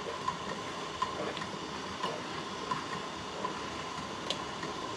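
A spoon stirring carp roe in a stainless steel pot over a steam bath: light clicks and scrapes of the spoon against the pot about once a second, over a steady hiss.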